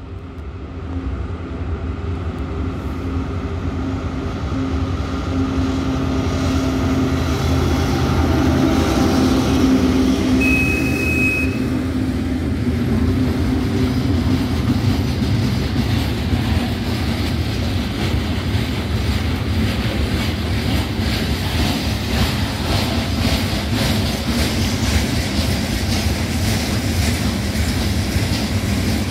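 2M62UM twin-section diesel freight locomotive approaching and passing close by, its diesel engines running with a drone that grows louder until about ten seconds in, with a brief high-pitched tone as it passes. After it, a long train of steel-coil flatcars and tank wagons rolls past with a steady rumble and quick wheel clacks over the rail joints.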